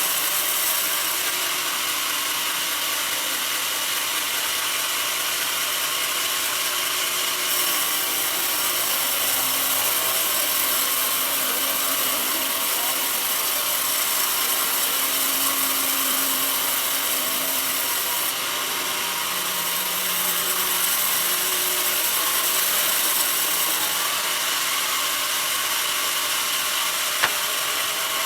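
Band sawmill blade running steadily through a mahogany log: a continuous high, hissing saw noise. Its brightness shifts a few times, and there is one sharp click near the end.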